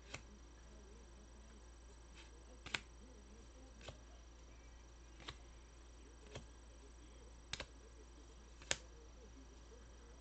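Trading cards and plastic card holders being handled, giving scattered sharp little clicks and taps, about eight in ten seconds, over a faint steady hum.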